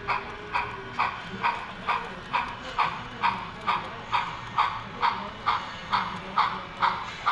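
Sound-equipped HO scale Union Pacific steam locomotive model chuffing steadily, about two chuffs a second.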